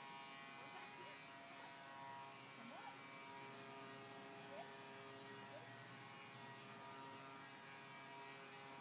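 Near silence: a faint steady hum of several held tones, with a few faint short chirps.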